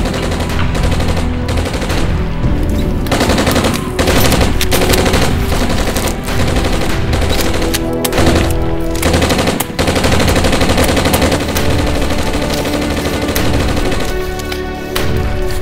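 Rapid gunfire, shot after shot in quick succession, over background music; the shooting thins out near the end.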